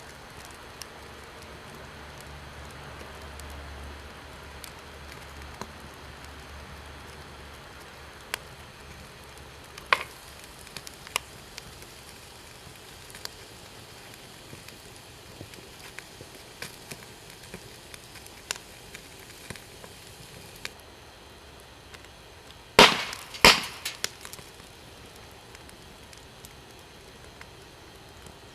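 Fire crackling, a steady low crackle with scattered sharp pops and two loud snaps close together near the end.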